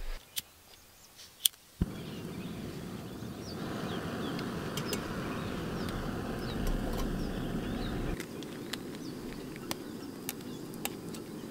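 Steady hiss of a small gas canister camp stove burning under a pot, louder for a few seconds in the middle. Birds chirp faintly.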